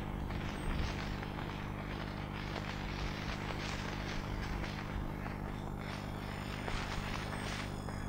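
Outdoor wind noise swelling and easing in gusts over a steady low hum.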